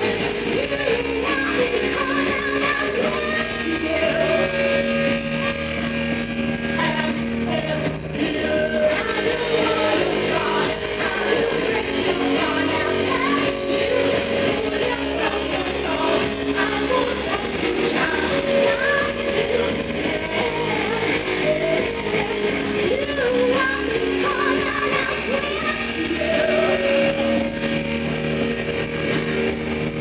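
A rock band playing live, with a woman singing lead into a microphone over the band.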